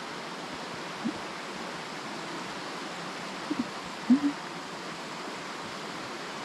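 Steady rush of a forest stream running over rocks. A few brief low pitched sounds cut through it, the loudest about four seconds in.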